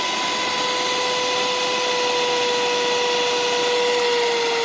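Scarlett electric hand mixer motor running at full speed with its beaters fitted: a steady, loud whine at one pitch over a whirring hiss, sagging slightly near the end.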